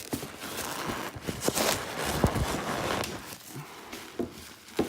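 Stuffing paper from a sneaker rustling and crinkling as it is handled, for about three seconds, with a few light knocks scattered through.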